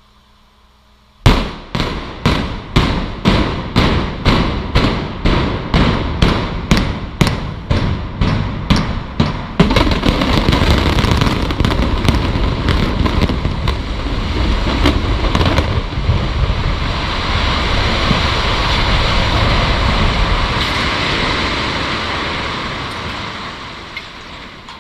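Implosion of a 20-story reinforced-concrete building: a rapid string of about twenty explosive charges going off two to three a second, followed by the long rumble and crash of the structure collapsing, which fades away near the end.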